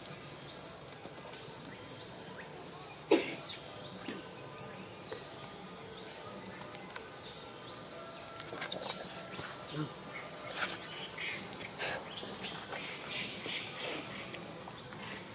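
Insects chirring in a steady, high, even tone, with scattered faint clicks and one sharp knock about three seconds in.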